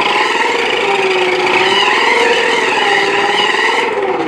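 Battery-powered toy remote-control car's small electric motor and gears whining as it drives, the pitch wavering up and down with its speed.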